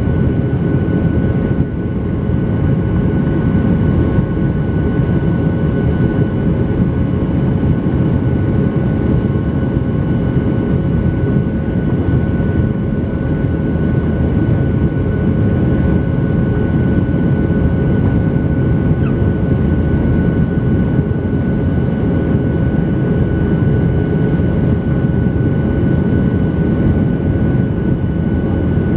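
Steady cabin noise of a Boeing 737-800 in flight: the constant rush of its CFM56-7B turbofans and airflow, with a few steady engine tones running through it.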